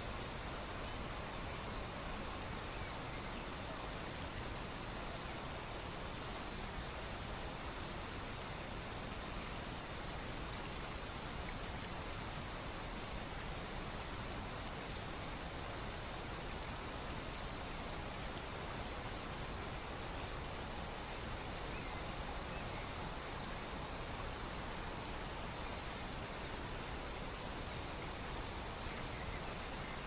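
Shallow, stony river flowing with a steady rush of water, under a continuous, rapidly pulsing high chirring of crickets. A few faint bird chirps come in around the middle.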